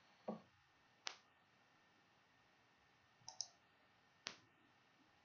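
Near silence, broken by a few faint, short clicks at irregular intervals, one of them doubled.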